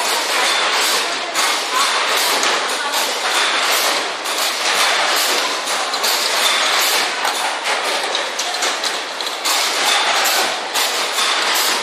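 Automatic folder gluer for corrugated carton boxes running: a steady loud clatter of its belts and rollers with many quick knocks as cardboard blanks pass through.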